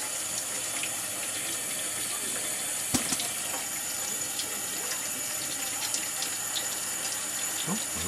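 Kitchen tap running steadily into a stainless steel sink, with one sharp click about three seconds in.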